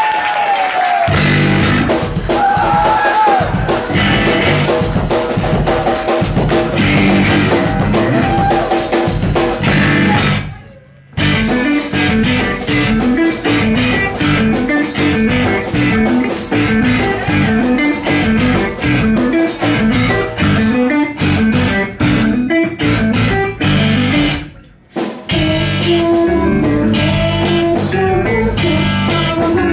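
Math-rock band playing live: electric guitars, electric bass and a drum kit. The full band comes in about a second in. It stops dead together twice, about ten seconds in and again near twenty-five seconds, and comes straight back in each time.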